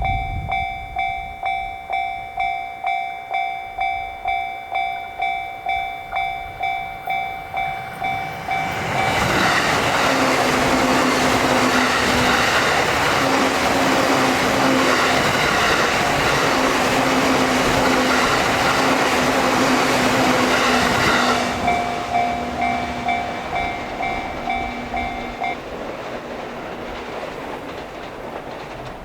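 Japanese level-crossing warning bell ringing 'kan-kan', about two strokes a second, then drowned out for about twelve seconds by a JR Sobu Line train passing over the crossing. The bell is heard again after the train goes by and stops a few seconds before the end, leaving the train's sound fading away.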